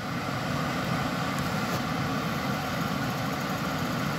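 A steady, even droning hum of a running kitchen appliance motor, with no strikes or changes.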